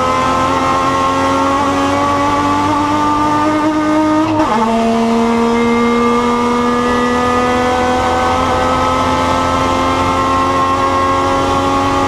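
Touring-car race engine heard from inside the car, pulling hard under full throttle with its pitch climbing steadily, then a quick upshift about four and a half seconds in that drops the revs before they climb slowly again.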